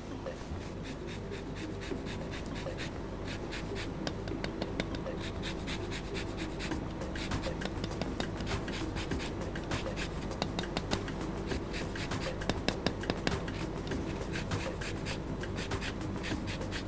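Fresh lime rubbed along a long rasp grater, zesting it: a continuous run of quick, dry scraping strokes of the peel across the metal teeth.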